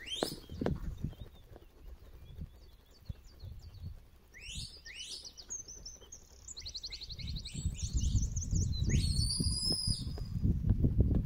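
Shepherd's whistle commands to a working sheepdog: short rising whistles at the start and again about four seconds in, a fast warbling trill, then a held note near the end. A low rumble of wind on the microphone builds in the last few seconds.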